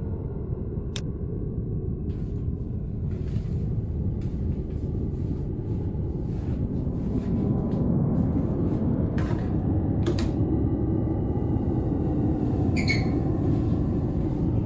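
A steady low rumble, with a few sharp clicks and knocks, two of them close together a little past the middle.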